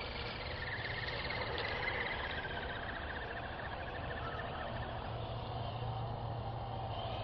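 Electric motor and gears of a radio-controlled scale truck whining as it crawls through mud. The pitch falls slowly and the whine fades out about four seconds in.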